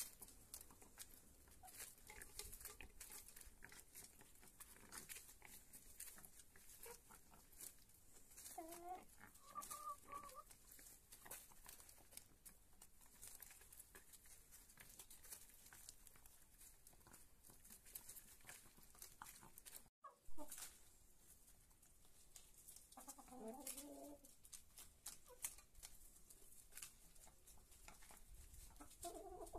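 Domestic hens clucking quietly a few times while pecking at lettuce leaves, with faint clicks throughout. About two-thirds of the way through, the sound drops out for an instant and there is a sharp pop.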